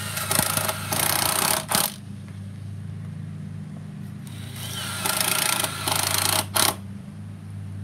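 Cordless drill driving screws into a wooden frame: two runs of about two seconds each, a few seconds apart, each ending with a brief final spurt as the screw is seated.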